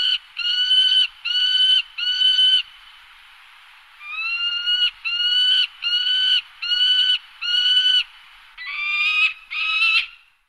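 Large waterfowl giving a series of loud, nasal honking calls, each about half a second long and slightly rising at the start. The honks come in an even run of four, then after a pause of about a second a run of five, then two harsher, rougher honks near the end.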